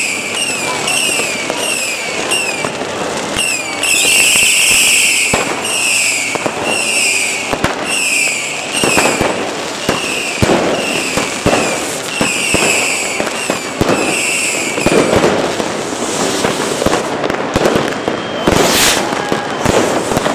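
Fireworks going off overhead: many rockets bursting in quick succession with sharp bangs and crackle, getting denser over the second half. Over the first three quarters a short, high, falling chirp repeats about twice a second, then stops.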